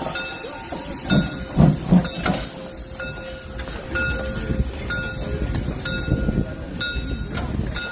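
Steam train running, with a low rumble that swells and fades, a steady tone, and a short metallic tick repeating about once a second.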